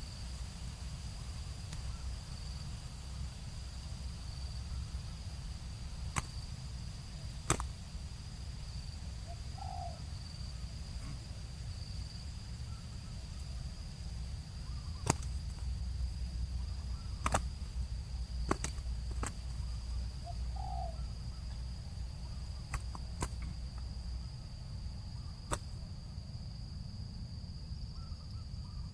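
Outdoor ambience: a steady high-pitched insect drone over a low wind rumble, broken by about nine sharp, scattered clicks.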